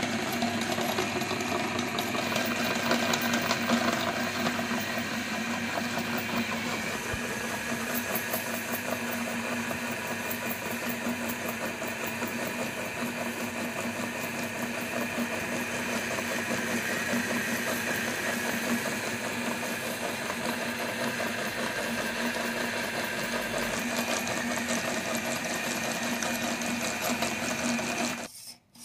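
Electric meat grinder motor running steadily with a constant hum, crunching mini Oreo cookies through its grinding plate. It stops abruptly near the end.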